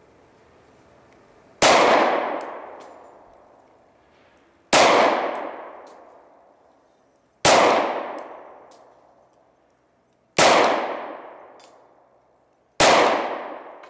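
Five shots from a Glock 20 10 mm pistol firing heavy 230-grain hard-cast bullets in slow aimed fire, two to three seconds apart. Each loud report trails off over about two seconds.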